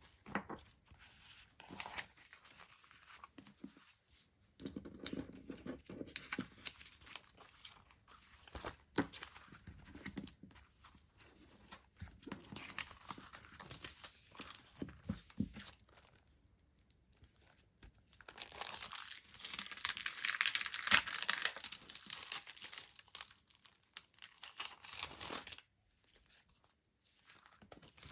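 Stationery packaging rustling, crinkling and tearing as items are unwrapped by hand, with a few sharp clicks. The loudest, most continuous rustling comes about two-thirds of the way through.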